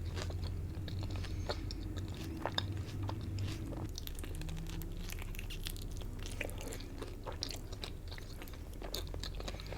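Close-miked chewing of food, with many small wet clicks and crunches, over a steady low hum.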